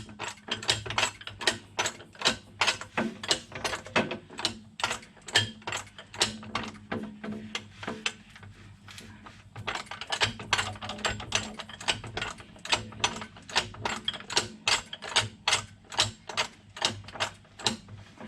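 Hand-pump oil can clicking with each pump stroke, about three strokes a second, as gear oil is pumped into a gearbox filler hole. The pumping slows briefly about halfway through, then picks up again.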